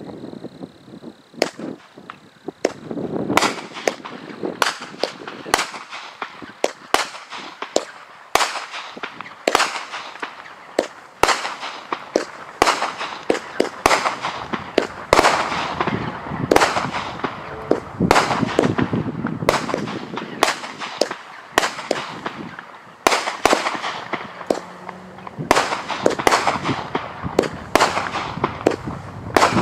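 Firedrake consumer firework firing a rapid string of small aerial shots that pop and burst overhead: sharp bangs about one or two a second, with a noisy wash between them.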